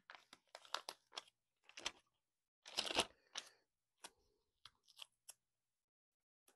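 Clear plastic bag of foam pads crinkling as it is handled and a sheet of pads is pulled out, in a run of short rustles loudest about three seconds in, followed by a few faint ticks as the pads are handled.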